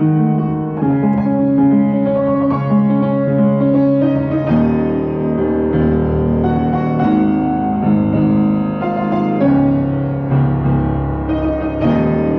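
Solo piano playing a slow, sustained chordal passage over deep bass notes, the harmony shifting every second or so.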